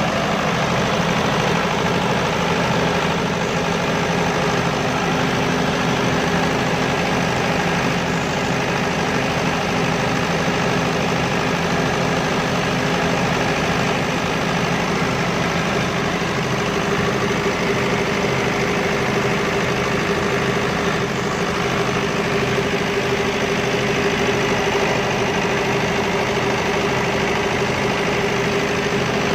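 Diesel generator set engine running steadily, its tone shifting slightly about halfway through.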